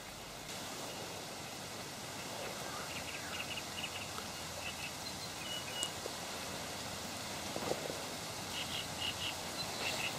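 Steady outdoor background hiss with small birds chirping: short high chirps in two runs, a few seconds in and again near the end.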